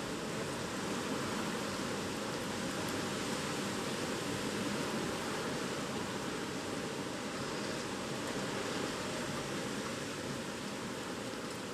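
Steady rushing noise of typhoon wind and rain, even and unbroken throughout.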